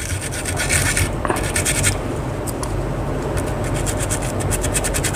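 Stiff brush scrubbing the solvent-wetted solder pads of a phone motherboard, a rapid scratchy rasp of quick short strokes, with a steady low hum underneath.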